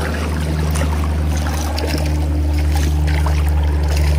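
Shallow creek water rushing over the stream bed, with scattered small splashes and a steady low hum underneath.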